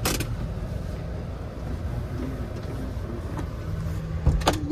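A car's engine running steadily at low speed, heard from inside the cabin as the car creeps forward. There is a sharp click at the start and a couple of clunks near the end.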